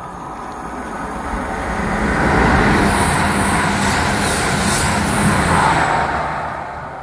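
EMR Intercity Class 222 Meridian diesel multiple unit passing close by at speed. Engine hum and wheels on rails swell over about two seconds and hold while the carriages go by, with a high hiss in the middle, then fade near the end.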